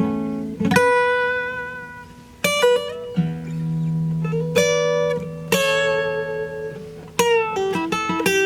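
Guitar being played solo: single plucked notes and chords ring out and fade over a held low note, with a few notes sliding in pitch.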